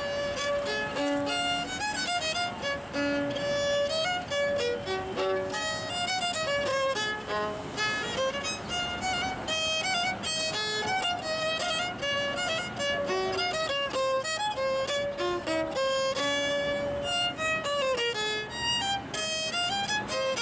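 Solo violin playing a melody, moving between held notes and quick runs of notes.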